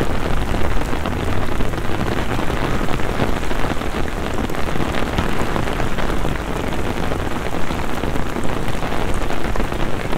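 Heavy downpour pelting wet paving stones: a dense, steady hiss of rain with countless drops splashing, over a low rumble.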